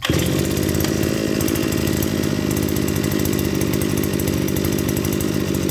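Kawasaki TD33 brush cutter's 34cc two-stroke engine catching at once on a pull of the recoil starter, without choke or priming, then running steadily at an even speed.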